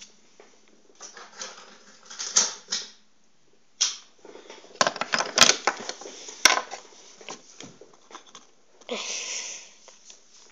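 A sticker packet being opened and its stickers handled: irregular crinkling, rustling and clicking, with a longer rustle about nine seconds in.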